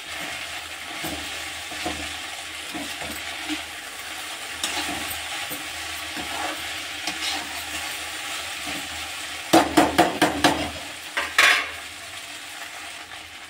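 Chopped okra sizzling as it fries uncovered in oil in a metal kadhai, stirred with a metal slotted ladle that scrapes the pan. About two-thirds of the way through comes a quick run of loud metal clinks and knocks of the ladle against the pan.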